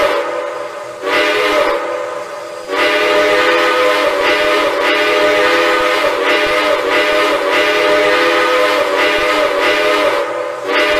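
Steam locomotive chime whistle, several notes sounding together as one chord. It swells louder about a second in and again near three seconds, then holds a long steady blast for about eight seconds. It breaks off briefly and starts again just before the end.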